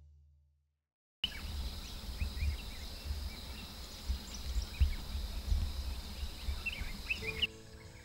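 Waterhole ambience: scattered short bird chirps over a steady high insect buzz and a low rumble, starting after about a second of silence. Soft music comes in near the end.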